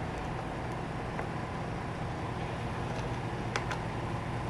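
Steady low workshop hum with a few faint metal clicks, about a second in and twice near three and a half seconds, as a brass refrigeration service valve and small wrench are handled on a compressor head.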